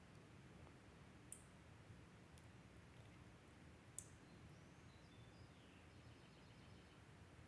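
Near silence: faint room tone with a steady low hum, broken by two small sharp clicks, about a second in and about four seconds in, and a few faint high chirps near the middle.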